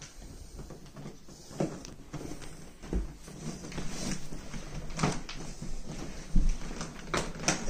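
Plastic vacuum storage bag around a compressed spring mattress rustling as the mattress is rolled up and strapped, with scattered knocks and clicks.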